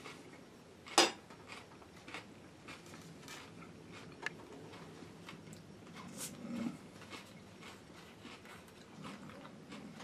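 A metal spoon knocks sharply on a plate about a second in, followed by scattered small clicks of utensils and tableware. About six seconds in, a short hiss as the cap of a plastic root beer bottle is twisted open.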